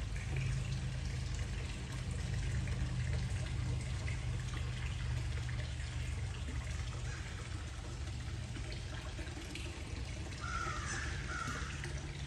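Water trickling steadily in a fish tank over a constant low hum, with two short chirps near the end.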